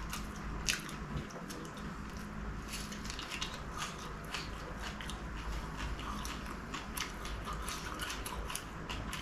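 Close-miked chewing of a fried chicken samosa, with many small sharp crunches and crackles as the crisp pastry is bitten and torn apart by hand.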